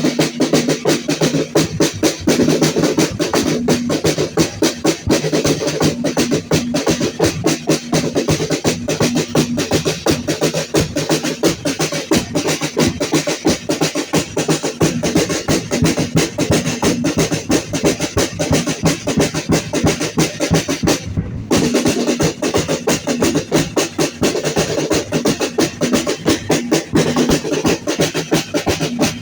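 Fast, steady drumming with sharp clacking strokes, the percussion accompaniment of a traditional danza de apaches dance. It breaks off briefly about 21 seconds in, then starts again.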